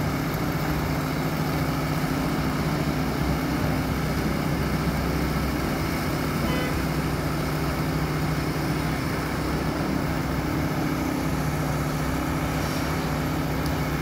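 Heavy diesel engine running steadily at constant speed, a low, even drone.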